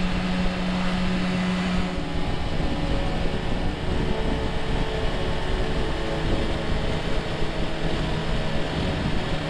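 Motorcycle engine running steadily on the road, with wind noise over it. The engine note drops slightly about two seconds in.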